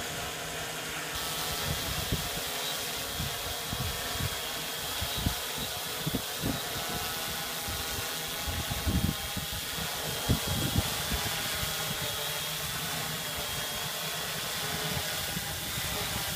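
Hexacopter's six electric motors and propellers whirring in a steady hover, a whine of several steady pitches, with low rumbling gusts now and then.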